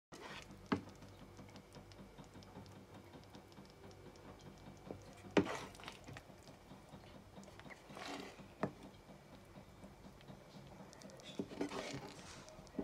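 A wooden spoon stirring and scraping thick caramel in a metal frying pan, with several sharp knocks of the spoon against the pan, the loudest about five seconds in. A faint crackle runs under it.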